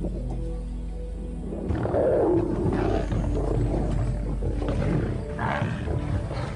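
Lions growling and snarling as they fight over a carcass, louder and rougher from about two seconds in, over background music.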